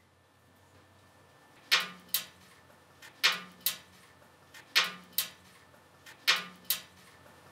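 Four pairs of sharp clicks, about a second and a half apart, each a louder click followed by a softer one a fraction of a second later.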